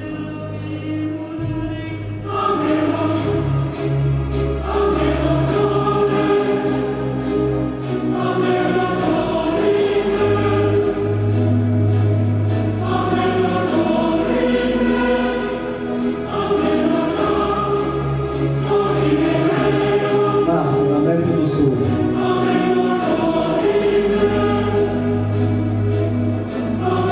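Music with a choir singing sustained chords over long, held bass notes; it swells louder about two and a half seconds in.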